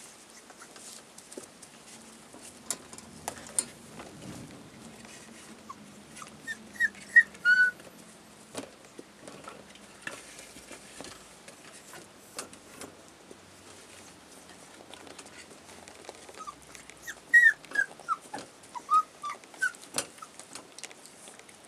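Collie puppies whimpering and yipping in short high squeaks, in two bunches: about a third of the way in and again near the end. Scattered light knocks come between.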